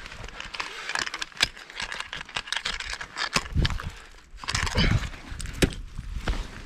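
Ice tools swinging into and hooking steep water ice: a series of sharp hits, the loudest about one and a half, three and a half and five and a half seconds in. Between them come scraping and crunching of ice and rustling of clothing and gear.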